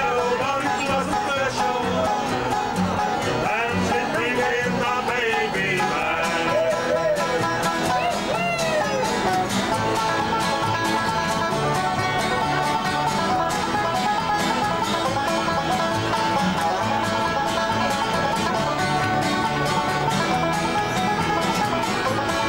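Folk band playing an instrumental tune on steel-string acoustic guitar and banjo, with steady strummed and picked notes throughout.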